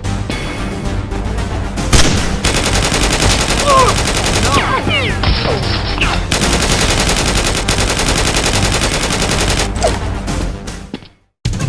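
Rapid, sustained automatic gunfire sound effects, a fast even rattle of shots, laid over background music; it cuts out abruptly shortly before the end.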